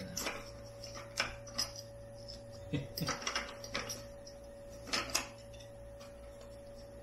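Small plastic charger plug adapters clicking and clattering as they are handled and worked out of a cardboard box, with the box rustling, in scattered bursts.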